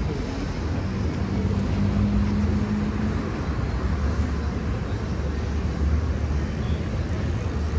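City street traffic: vehicle engines running with a steady low hum, one engine's drone holding a steady pitch for about two seconds about a second in.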